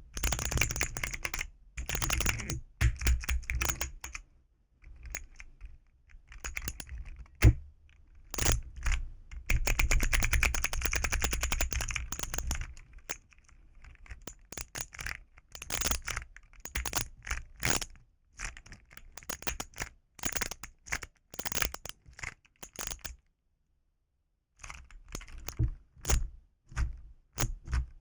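Keys of a keyboard fidget toy being pressed and clicked: fast rattling runs of key clicks like typing, then single sharp clicks with a brief pause near the end.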